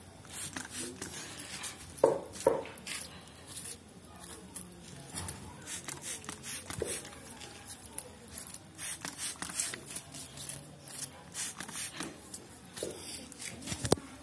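Hairdressing scissors snipping through long straight hair in quick runs of short, crisp cuts as the ends are trimmed into a blunt line, with two louder clicks about two seconds in.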